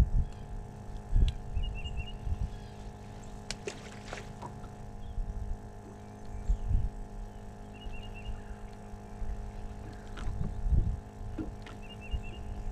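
Steady electric hum from the boat's bow-mounted trolling motor, with irregular low thumps and knocks on the boat, the loudest near the start, about a second in and around ten seconds in. A short high chirping trill sounds three times.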